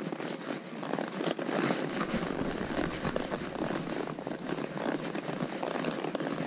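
A horse walking up a rocky dirt trail: irregular hoof clops and scrapes on stone and gravel. Wind rumbles on the microphone for a moment about two seconds in.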